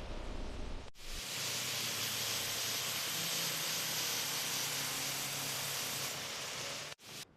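A steady, even hiss that starts abruptly about a second in and cuts off sharply near the end.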